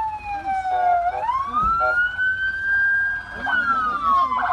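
Police siren wailing: a slow tone that falls, rises again over about two seconds, then starts to fall, with a faster pulsing siren tone overlapping it in the middle and near the end.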